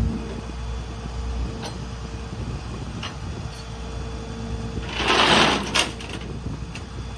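Rollback tow truck running, its low rumble dropping off right at the start, with a faint steady whine underneath. A short noisy scrape comes about five seconds in, with a few light clicks.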